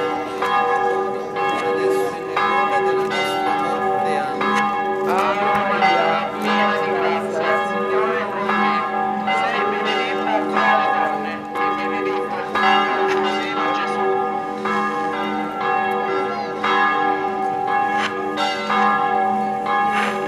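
Church bells ringing continuously: many overlapping strikes whose tones hang on and blend into a steady ringing hum.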